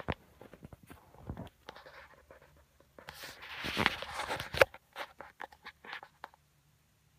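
Handling noise on a phone's microphone: scattered clicks and rustles, then a louder scraping rub from about three seconds in, ending in a sharp knock near five seconds.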